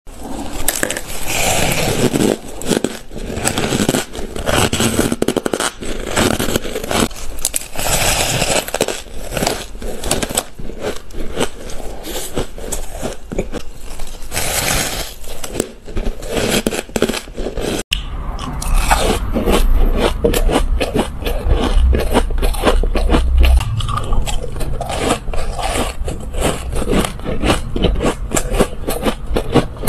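Ice being bitten and chewed close to the microphone: a dense, loud run of crisp crunches and crackles. About two-thirds of the way through it cuts to a different recording of ice crunching with a heavier low rumble beneath.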